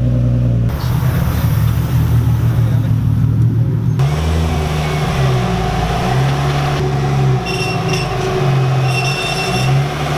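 Car engine running and revving, its pitch rising and falling, with abrupt changes in sound where the shots cut.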